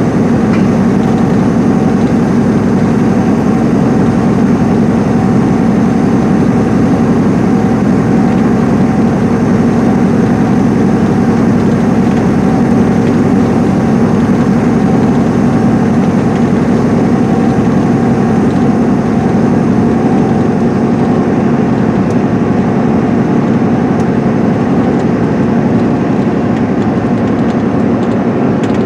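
Cabin sound of a 2010 MCI D4500CL coach cruising at highway speed: the rear-mounted Cummins ISM diesel engine drones steadily under load, mixed with tyre and road noise from the wet pavement.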